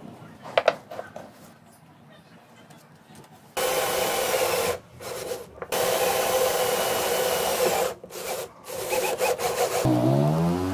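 A few light clicks of small concrete discs being handled, then a cordless drill boring into a concrete disc. The drill motor runs at a steady pitch in two runs, about one second and then about two seconds, then in a few short bursts.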